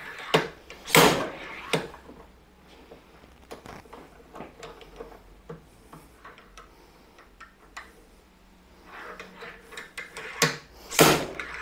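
Metal clicks and knocks from a bearing puller being turned with a wrench on a Shimano Hollowtech II bottom bracket cup held in a vise, as the old cartridge bearing is worked out. A few sharp knocks come at the start, faint scattered ticks follow, and louder knocks come again near the end.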